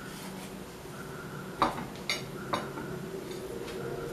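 A metal spoon scraping ground tamarind paste out of a stainless-steel mixer-grinder jar, with three sharp metal clinks about half a second apart midway. A faint steady hum runs underneath.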